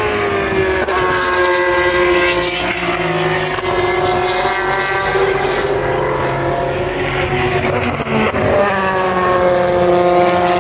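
Endurance race cars going by at high speed through a fast bend, engines at high revs. The engine note drops in pitch as one passes at the start and holds steady, and another passes with a falling note about eight seconds in.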